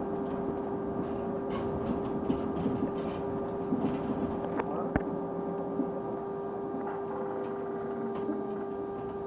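A steady hum at one constant pitch from a London bus, with fainter steady tones above it, over the bus's rumbling running noise. A few light clicks and knocks come through, with one sharper knock about halfway.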